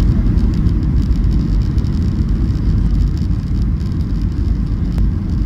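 Steady low rumble of engine and airflow noise inside the cabin of a Boeing 737 airliner in flight, with a fainter hiss above it and a faint click near the end.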